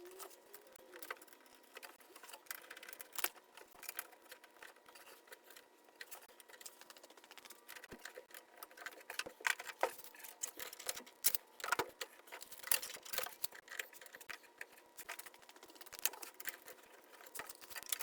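Irregular light clicks and taps, like small parts and tools being handled, coming thicker and louder in the second half, over a faint steady hum.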